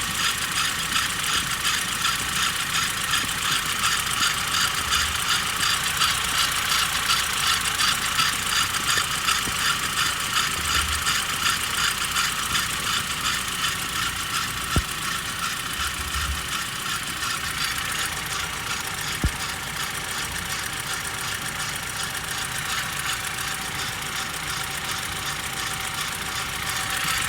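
A 1.6 ALZ petrol engine idling cold with a fast, even ticking from its Continental belt. The noise comes from the printed "Continental" text sticker on the belt. Two single sharp clicks sound near the middle.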